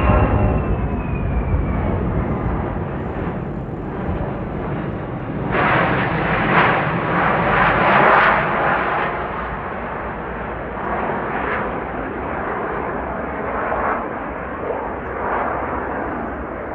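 Boeing C-17 Globemaster III's four Pratt & Whitney F117 turbofan engines passing overhead. A falling whine over the first two seconds gives way to a loud rushing jet noise, which swells about six to eight seconds in and then eases as the aircraft flies away.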